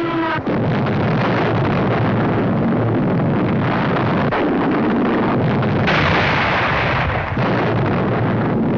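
Continuous loud din of artillery and mortar fire with shell bursts, on an old newsreel soundtrack. It grows harsher and brighter for a moment a little past the middle.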